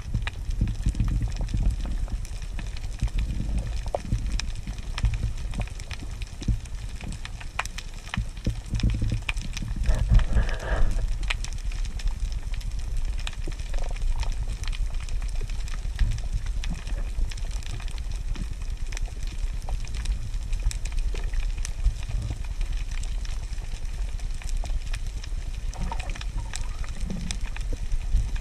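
Underwater ambience picked up by a camera in a waterproof housing: a steady, muffled low rumble of water moving against the housing, with many faint scattered clicks and crackles. A brief faint higher-pitched sound comes about ten seconds in.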